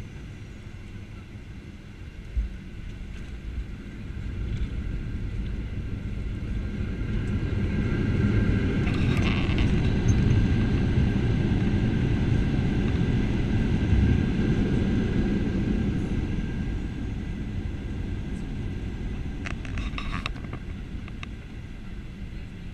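Boeing 737-800 on its landing roll, heard from inside the cabin. A thud about two seconds in as the wheels touch down, then the CFM56 engines' rumble builds to a peak midway and dies away as reverse thrust slows the aircraft.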